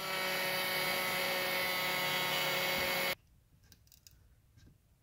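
Mini 3D printer running: a steady, even whirring hum from its fans and motors with several fixed tones, which cuts off abruptly about three seconds in.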